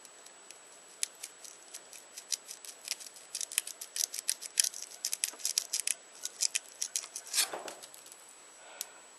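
A quick, irregular run of small, sharp clicks and ticks, with a short scrape near the end, as the handle of an old knife is worked loose from its blade by hand after its rivets have been knocked out.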